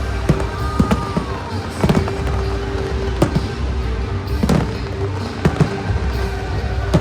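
Fireworks shells bursting in sharp bangs, about one every second at uneven intervals, the loudest about four and a half seconds in, over the show's accompanying music.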